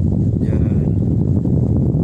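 Steady low rumble aboard a moving vessel: the boat's engine running, mixed with wind on the microphone.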